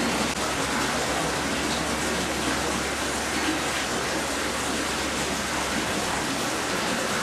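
Steady, even rushing hiss with no distinct events, like rain or running water.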